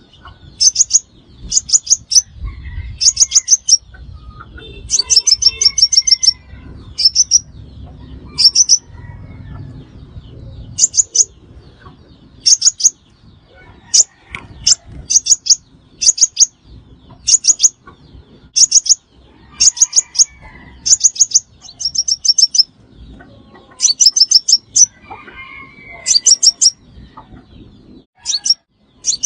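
Crimson sunbird calling: short bouts of rapid, high, sharp chips, one bout about every second.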